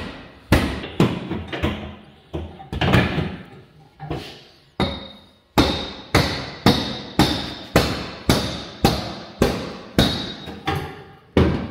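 Hammer blows, about two a second, knocking a dent out of a Nissan 240SX's sheet-metal rear quarter panel. The panel rings after the strikes, with a steady metallic ring from about halfway through.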